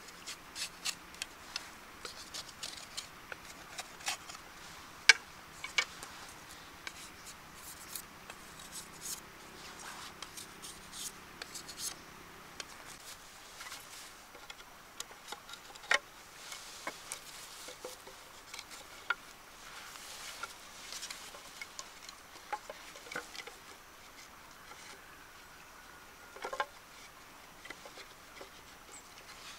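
Irregular light clicks, taps and scrapes of a knife working bamboo by hand, with a few sharper knocks among them.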